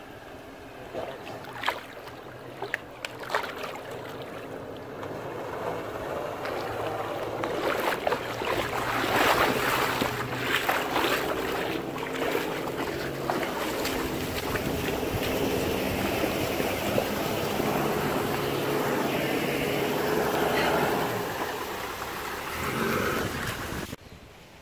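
Four-wheel-drive engine working under load as the vehicle crawls down a rock ledge, with a few sharp knocks in the first few seconds. The engine grows louder from about six seconds in and cuts off suddenly near the end.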